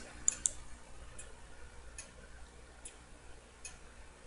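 Faint ticking at an even pace, a little faster than once a second. Two sharp mouse clicks just after the start.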